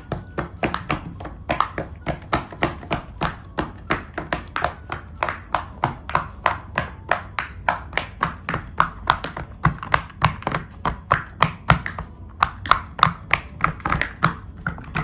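Silicone pop-it fidget toy bubbles being pressed one after another, a steady run of soft pops at about four a second.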